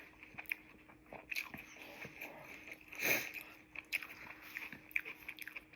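A person chewing food close to the microphone, with frequent short wet mouth clicks and smacks. About three seconds in there is one louder bite.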